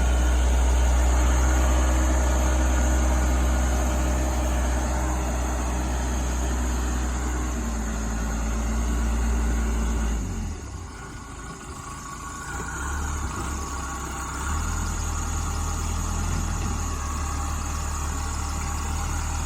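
Backhoe loader engine running steadily while the machine pushes snow; its sound drops away about ten seconds in and comes back up a few seconds later.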